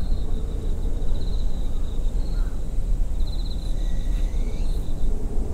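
Outdoor ambience: a steady low rumble with an insect's high, pulsing trill repeating in short bursts, and a faint bird call about four seconds in.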